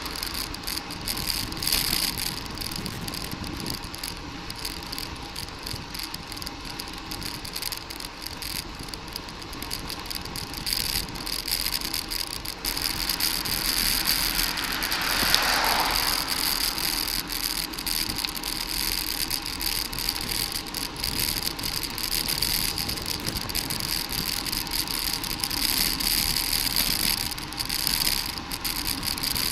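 Steady wind and road noise from a moving bicycle, with light rattling. About halfway through, a car passes and its sound swells and fades.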